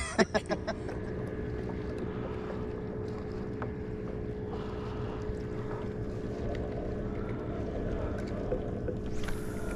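A boat motor running with a steady, constant-pitched hum over a low wash of water and wind noise. A few short knocks come in the first second.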